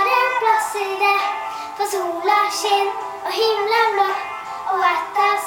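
A young girl singing a Norwegian children's summer song in continuous sung phrases.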